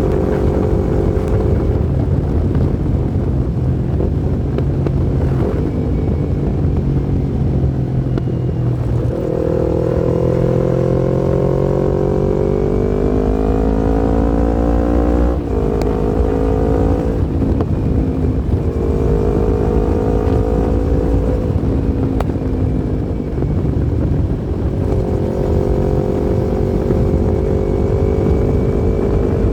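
Yamaha MT-25's 249 cc parallel-twin engine running under way. About a third of the way in the revs climb steadily for several seconds, then drop sharply at a gear change about halfway. After that the engine holds and eases off in shorter spells.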